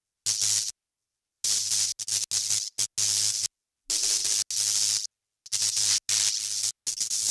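Outro music buried under heavy static hiss with a low steady hum, chopped into abrupt bursts that cut to dead silence several times.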